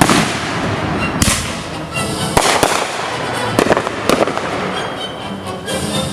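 Consumer fireworks going off in quick succession: sharp bangs every second or so with crackling in between. Music plays underneath.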